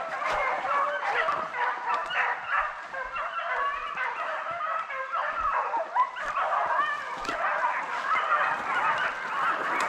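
A pack of beagles baying together, many overlapping voices calling continuously: the sound of the pack running a rabbit's scent trail.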